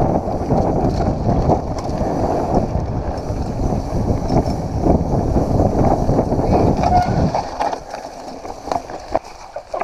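Mountain bike ridden fast down a leaf-covered dirt singletrack: a steady rumble of tyres on dirt and leaves with short clattering knocks from the bike and wind on the microphone. It eases off about seven seconds in as the bike slows.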